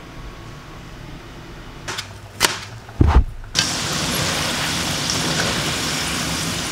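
A few sharp knocks and a heavy thump, then French fries deep-frying in a wok of hot oil: a steady, loud sizzle from about three and a half seconds in.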